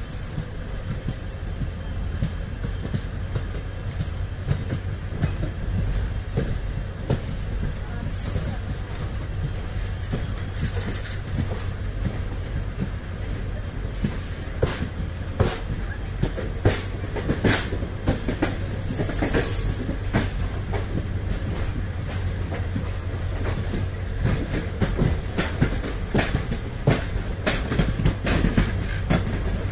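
Indian Railways passenger coaches rolling out of a station on parallel tracks: wheels clicking over rail joints and points over a steady low rumble, the clicks coming more often from about halfway through as the trains gather speed. Two brief high squeals, about 8 seconds in and again near 19 seconds.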